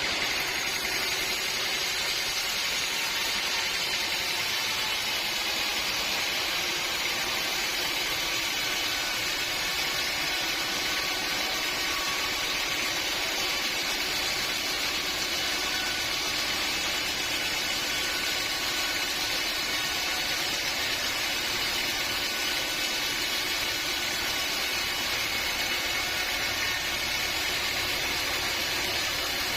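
Sawmill machinery running steadily: a constant mechanical hum and hiss with a few faint steady tones, no change in pace or load.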